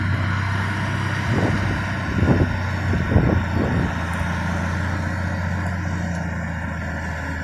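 Cat 980 wheel loader's diesel engine running steadily, with a few brief rises and falls in engine speed about one to four seconds in.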